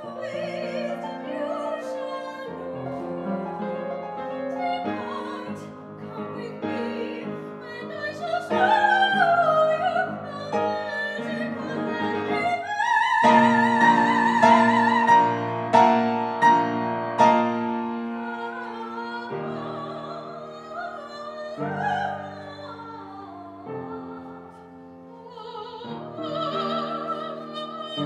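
Female operatic voice singing with wide vibrato over piano accompaniment. The voice climbs to a long held high note about halfway through, and the piano strikes several strong accented chords just after it.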